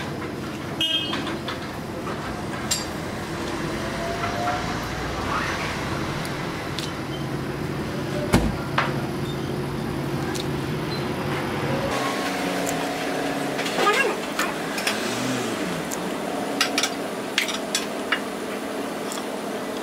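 Steady background hum and murmur with scattered sharp knocks and clinks, one louder knock about 8 seconds in; the hum changes character about 12 seconds in.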